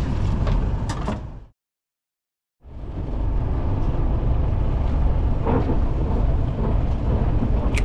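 Steady low rumble of a fishing boat's engine and wind on the water, cut to dead silence for about a second around a second and a half in. A single sharp click near the end.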